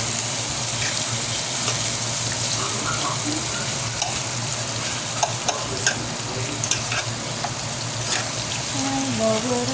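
Seasoned zucchini slices frying in hot oil in a skillet: a steady sizzle with scattered pops and clicks.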